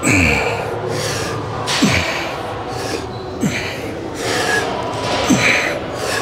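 A man breathing hard under exertion, a forceful breath with a short falling grunt about every one and a half to two seconds, in time with each rep of lying leg curls.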